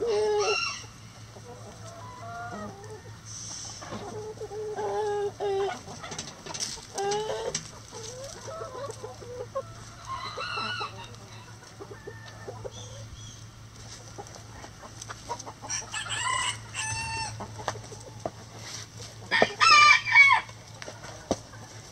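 Backyard hens clucking and calling on and off, with short, loud squawks about three quarters of the way through and the loudest call near the end.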